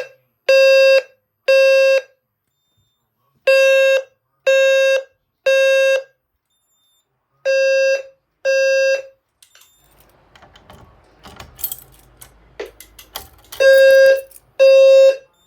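Low-frequency fire alarm sounder, EST Genesis type, blaring a low 520 Hz square-wave tone in the three-pulse temporal evacuation pattern. About two-thirds through, the pattern breaks off after two pulses. A few seconds of clicking and rustling follow, then the three-pulse tone resumes near the end.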